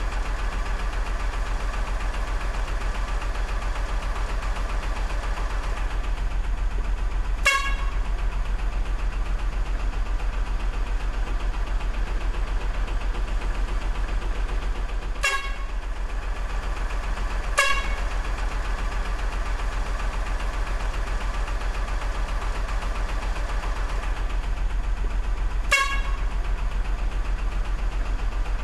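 RC dump truck running with a steady low mechanical drone and a fast fine rattle. Four short horn toots sound a few seconds apart.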